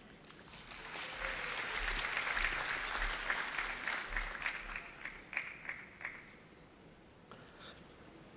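Audience applauding. The clapping swells over the first couple of seconds and dies away about six seconds in.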